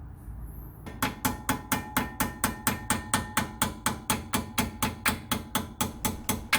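Rapid, even metal-on-metal hammer taps driving the bottom retaining bolt back into a Lexus IS F rear brake caliper against its spring clip. The taps start about a second in, run at about five a second, and carry a ringing tone.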